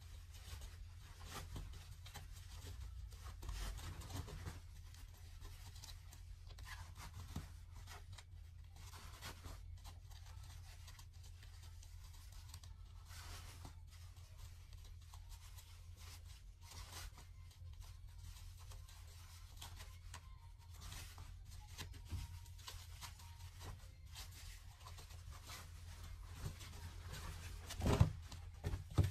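Fabric being handled, rustled and pulled over a sewing table in short, irregular scrapes, over a steady low hum. A single louder knock near the end.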